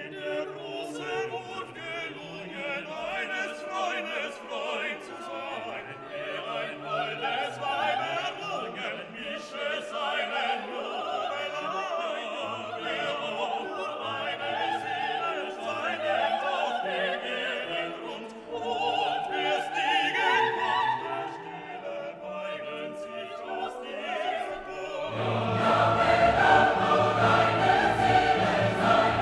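Classical background music with singing voices, choral and operatic in style, swelling fuller and louder near the end.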